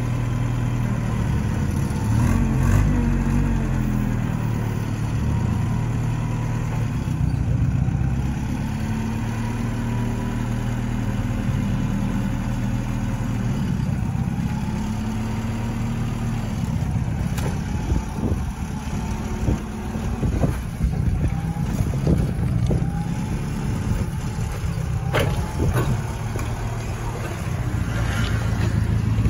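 Forklift engine running, rising and falling in pitch as it drives with a loaded pallet. A series of sharp clanks and knocks comes through the second half as it works over the metal ramp at the back of the trailer.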